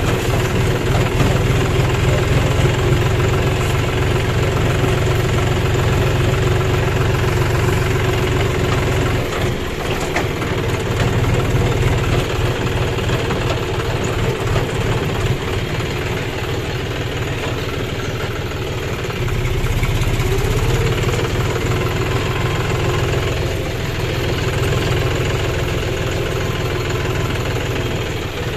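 John Deere 5039D tractor's three-cylinder diesel engine running steadily while driving, its note easing off briefly a couple of times.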